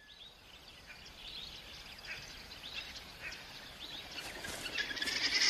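Outdoor wildlife ambience with faint, scattered bird chirps. Near the end, a louder, steady, high trilling sets in and keeps going.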